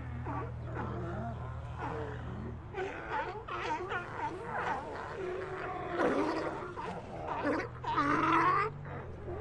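A sea lion colony calling: many animals' calls overlap, rising and falling in pitch, with louder calls about six seconds in and again near eight seconds.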